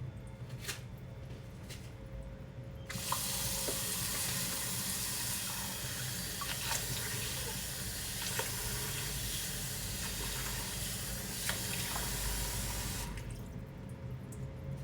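Water running from a tap, turned on about three seconds in and shut off sharply near the end, with a few small splashes and clicks in the stream.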